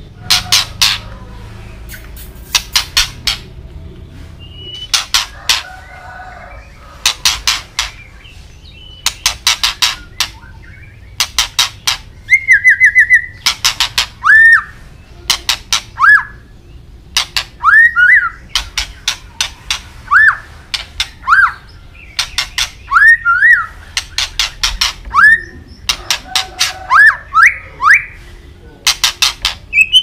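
White-rumped shama singing: runs of rapid, sharp clicking notes, and from about halfway through, clear whistled notes sliding up and down between further clicking runs.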